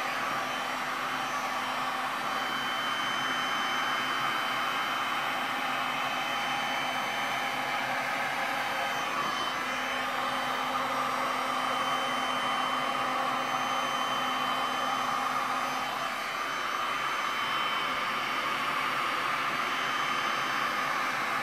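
Handheld heat gun running steadily, its fan blowing hot air over wet epoxy resin to pop surface air bubbles.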